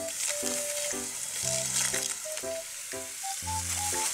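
Background music: a tune of short notes, about two a second, with a deeper note every two seconds, over a steady high hiss.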